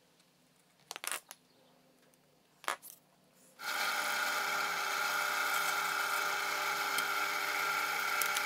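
Two short knocks, then about three and a half seconds in a bench drill press starts and runs steadily, its twist bit boring a hole through the wooden bevel-gauge handle.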